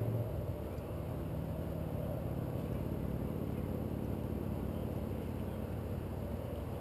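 Small nitro-methanol engine of a Traxxas Nitro 4-Tec RC car idling steadily while the car sits still, heard through the body it is mounted on; the idle is a touch louder in the first half second, then settles.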